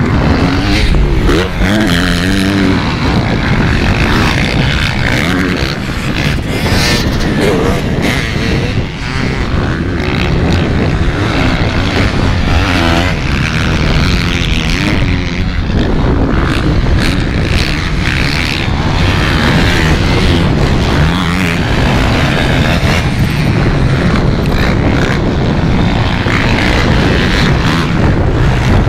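Several motocross bike engines revving around a dirt track, their pitch rising and falling again and again as the riders accelerate, shift and back off over the jumps.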